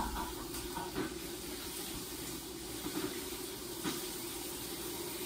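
Shower water running steadily behind a glass shower door, an even hiss, with a couple of faint knocks.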